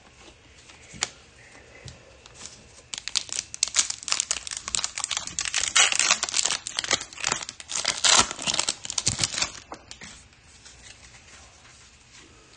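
A 2022 Bowman baseball card pack's wrapper being torn open and crinkled in the hands. The loud crackling starts about three seconds in and stops just before ten seconds, followed by quieter handling of the cards.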